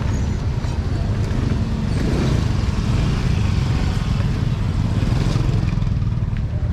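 Motorbike traffic: engines running and passing close by in a busy market street, a steady low rumble that swells briefly about two seconds in.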